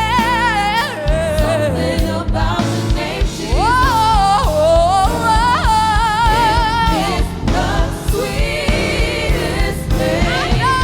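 Gospel song in progress: sung vocal lines with strong vibrato, sliding up and down in runs, over a band with bass and a steady drum beat.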